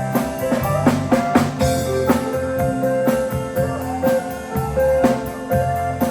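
Country band playing an instrumental solo break: a steady drum-kit beat with bass and a sustained, sliding lead line over it.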